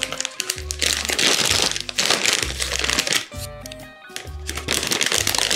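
Background music with a steady, repeating bass line, with many short clicks and crackles mixed in over it.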